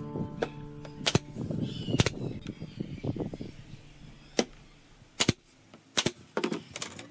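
Nail gun firing brads into pine trim strips: several sharp shots a second or so apart, with wood strips rattling and knocking between them.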